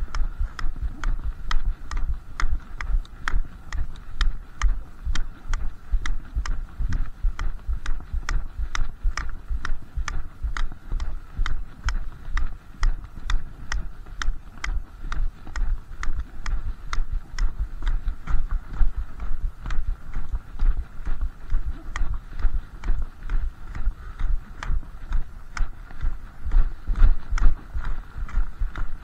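Nordic walking poles striking the ground in time with brisk steps: a sharp click about twice a second from the pole tips, each over a dull low thud.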